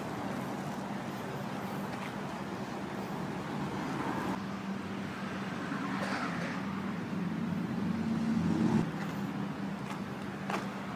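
Steady street traffic noise with a low engine hum, louder for a moment about eight and a half seconds in.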